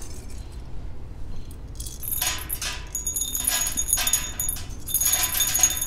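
Wood pellets poured from a metal scoop into a steel smokeless fire pit, rattling and clinking as they scatter over the metal bowl inside, with a faint metallic ring. The rattling starts about two seconds in and comes in a few bursts.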